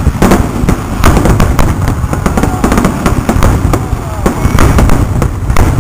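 Aerial fireworks going off in a rapid barrage: many shells launching and bursting close together, a dense string of sharp bangs and crackles over a continuous low rumble.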